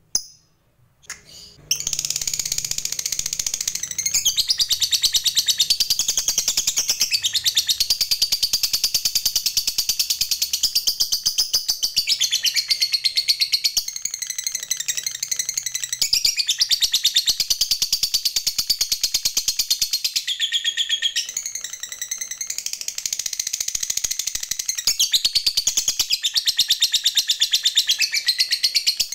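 Fischer's lovebird giving a long ngekek: an unbroken, very rapid high chatter that starts about two seconds in and keeps going, shifting its pattern briefly every few seconds.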